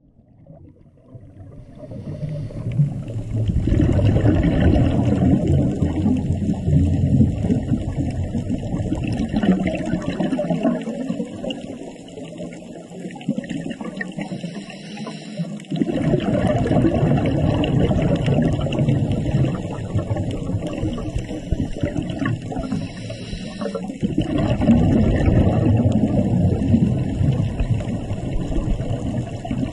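Muffled underwater rushing and gurgling water noise. It fades in over the first few seconds, eases for a few seconds around the middle, then swells again.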